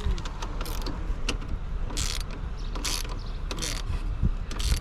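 Hand ratchet with a 14mm socket clicking in short runs, about one every second, as it backs a bolt out of the motorcycle's frame.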